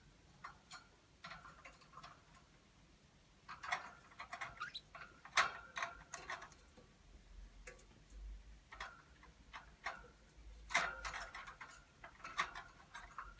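Pet parakeet vocalising in clicks and short chattering chirps, in two louder bursts with scattered clicks between them.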